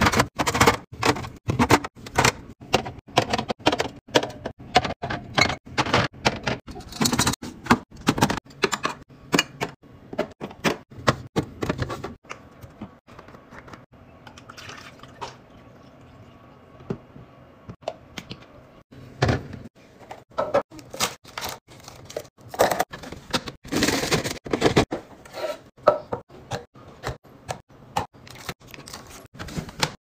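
Cans and food containers knocking and clinking in quick, irregular clicks as they are set into fridge bins and a can organiser. Midway the knocks thin out and juice is poured from a jug into a carafe.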